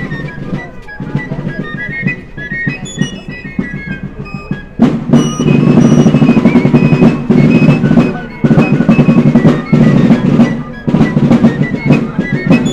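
Background music: a melody of short notes, with drums coming in loudly about five seconds in and keeping a steady beat.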